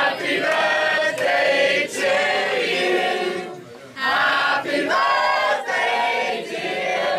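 A crowd of party guests laughing and talking over each other, many voices at once, with a short lull about three and a half seconds in.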